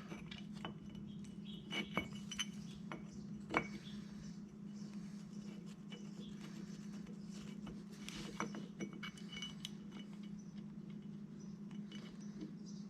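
Faint metallic clinks and taps as a freshly machined metal plate and its bolts are handled and test-fitted, a few about two to three and a half seconds in and a small cluster near the middle, over a steady low hum.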